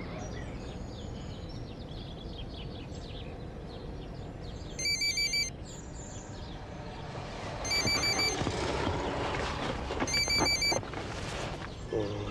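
Mobile phone ringing with an electronic trilling ringtone: three short rings about two and a half seconds apart, the first roughly five seconds in.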